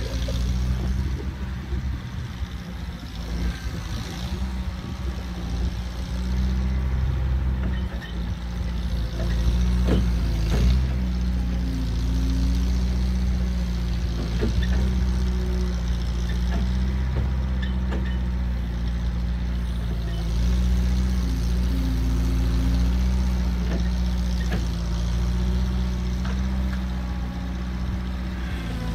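Bobcat skid-steer loader's engine running steadily as the machine works back and forth, with a few short knocks from the loader and its bucket.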